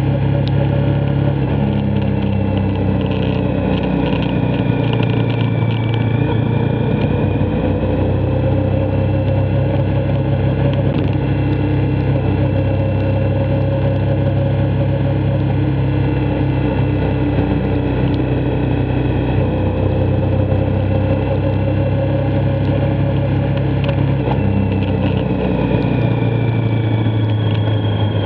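Motorcycle engine running steadily at cruising speed, its note drifting slowly up and down with road speed, over a constant rush of wind and road noise.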